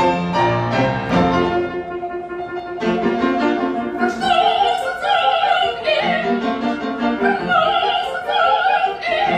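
Operatic classical music: piano and instrumental accompaniment, with a high singing voice with vibrato coming in about four seconds in.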